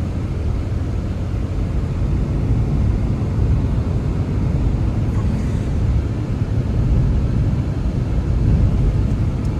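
Blizzard wind blowing hard, a steady low rumble with gusty swells in level.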